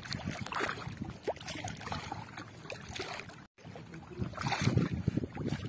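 Water splashing and trickling as a wet fishing net is hauled by hand out of the water beside a small boat, with scattered knocks. The sound cuts out for an instant about three and a half seconds in.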